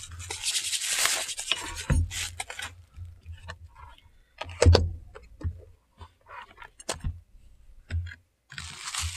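A parcel being handled and unwrapped. There is a burst of rustling and scraping at first, then scattered knocks and taps, and the wrapping starts crinkling again near the end.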